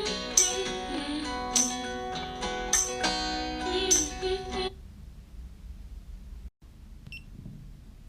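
Acoustic guitar song with strummed chords that stops about four and a half seconds in, leaving only a faint low background hiss; a short tick comes near the end.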